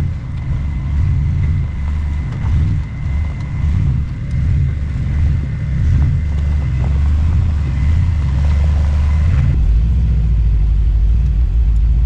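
Engine of a lifted 4x4 GMC Safari van running at low speed as it crawls over trail rocks, a heavy uneven rumble that turns steadier and stronger about nine and a half seconds in. A faint steady high whine runs alongside and stops at the same point.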